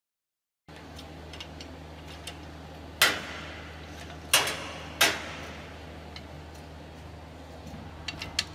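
Three sharp metallic clanks with a short ring, about three seconds in and twice more over the next two seconds, as the stainless-steel lid clamps of a vacuum fryer are released to open it. Lighter ticks come before and after, over a steady low machine hum.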